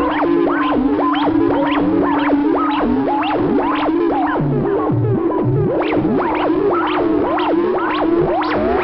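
Buchla and Eurorack modular synthesizer soundscape: a steady low drone under a dense stream of quick sweeping chirps, several a second. Short low blips come in around the middle.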